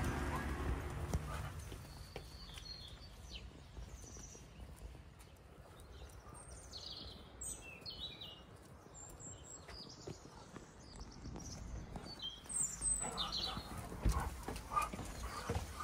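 Small birds chirping in short, scattered calls, with a few soft knocks and a low rumble that fades over the first couple of seconds.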